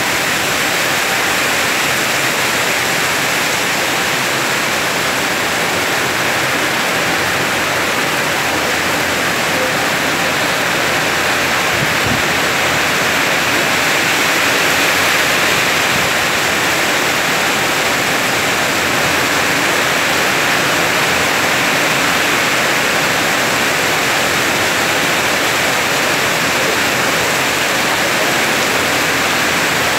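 Heavy rain pouring down, a loud, even hiss that holds steady throughout.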